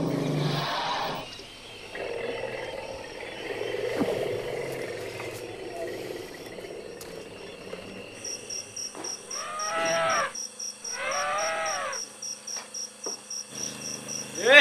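An elephant calling, with two drawn-out calls that rise and fall about nine and eleven seconds in. Crickets chirp steadily from about eight seconds in.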